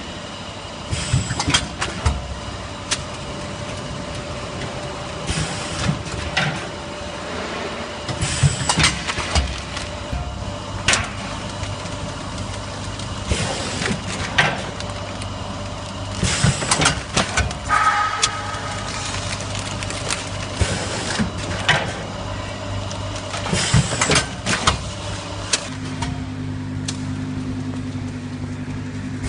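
Vertical form-fill-seal bagging machine running: a steady machine hum under repeated clacks and clatters every few seconds as the mechanism cycles, forming, sealing and dropping bags. A deeper steady hum comes in near the end.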